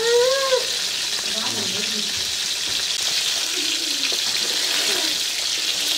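Poa fish frying in hot oil in a wok over a wood-fired clay stove: a steady sizzling hiss, with a wooden spatula moving in the pan. Right at the start a short rising-then-falling call is heard over the sizzle.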